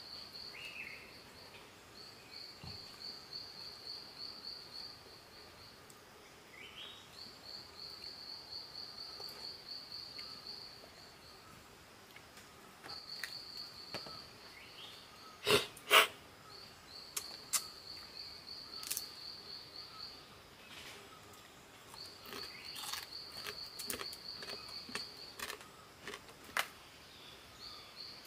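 A high, pulsing insect trill in runs of several seconds with short breaks between them. Scattered clicks through the second half, with two loud sharp knocks just past the middle.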